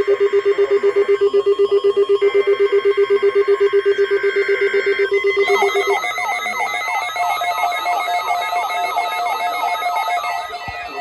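Loud electronic ringing tones: a low tone warbling rapidly, with higher tones switching on and off over it. About five and a half seconds in, it changes to a busier repeating pattern of electronic chirps at several pitches.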